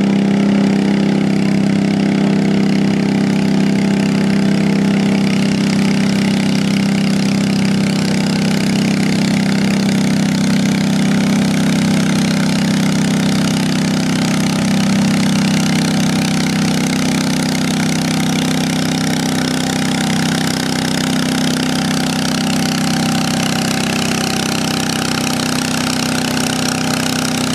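Stock-class Cub Cadet garden tractor engine running steadily under load as it drags a weight-transfer pulling sled.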